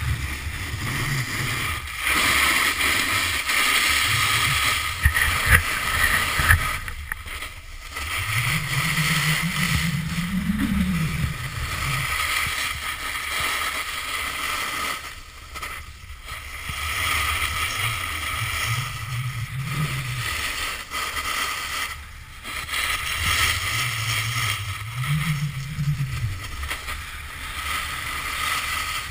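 Wind rushing over a pole-mounted GoPro's microphone while a snowboard slides and carves on packed snow, with a low rumble that swells and fades through the turns.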